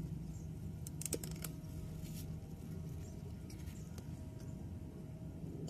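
Garden shears snipping Utah celery stalks: a quick run of sharp clicks about a second in, another near two seconds, and a few lighter snips later, over a low steady hum.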